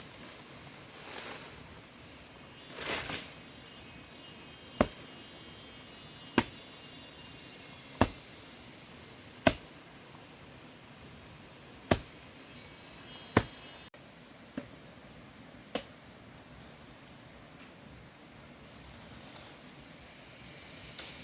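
A series of sharp knocks, six strong ones about a second and a half apart, then two fainter ones, over a faint steady outdoor background.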